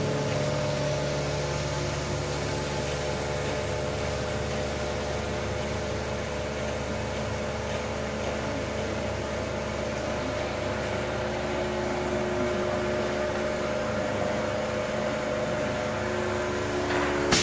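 Vacuum pump of a comforter vacuum packing machine running, a steady hum of several fixed tones over a low rumble.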